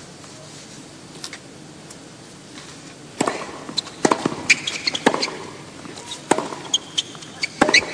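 Tennis rally on a hard court. A few faint ball bounces come first. From about three seconds in there are sharp racket strikes on the ball roughly a second apart, with bounces in between and short squeaks of shoes on the court.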